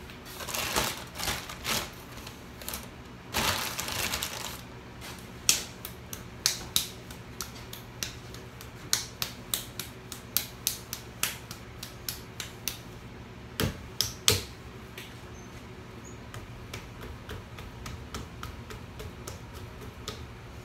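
A ball of clay slapped back and forth between the palms to round it for throwing: a run of sharp slaps, about two a second for a while, then only faint taps. A steady low hum runs underneath.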